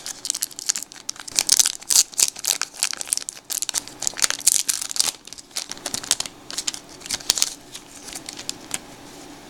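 Foil wrapper of a 1992 Donruss baseball card pack being torn open and peeled back by hand: a dense run of crinkling and crackling. It dies away after about seven and a half seconds, leaving a faint steady hum.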